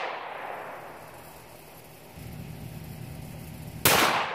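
A bolt-action rimfire rifle fires one sharp shot near the end, with the echo of the previous shot dying away at the start. About two seconds in, a low steady engine hum from a vehicle sets in underneath.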